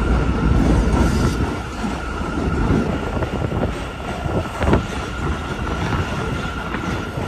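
Gasoline van engine running rough with an uneven low rumble and irregular knocks, after diesel got into its fuel, with a steady high whine over it.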